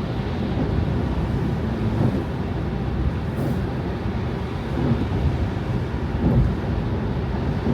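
Car driving on snowy roads: a steady low rumble of tyres and engine, with a few soft low bumps, about 5 and 6 seconds in.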